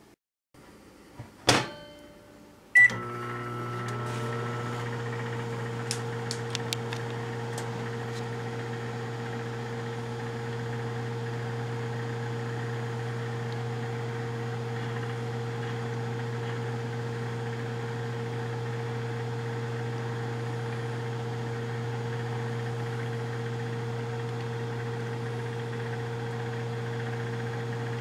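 A microwave oven door shuts with a loud clunk and a short beep sounds, then the microwave starts and runs with a steady hum. A few faint ticks come a few seconds after it starts.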